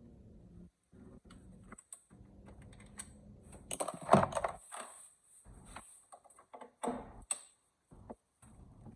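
Irregular clicking and light metal clatter of hand tools working on the bolts of a car's intake manifold, with a louder clatter about four seconds in and another near seven seconds.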